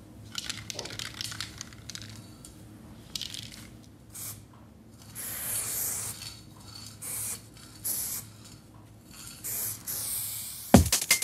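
Aerosol spray-paint can hissing in short bursts of varying length, over a faint low hum. A drum and bass beat comes in with hard drum hits right at the end.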